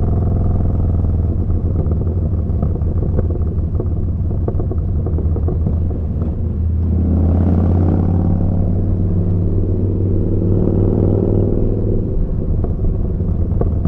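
Yamaha Bolt's air-cooled V-twin running through a Vance & Hines slip-on exhaust while riding. The engine note is steady, then the throttle opens about halfway through, the pitch rises and holds, and it eases off again near the end.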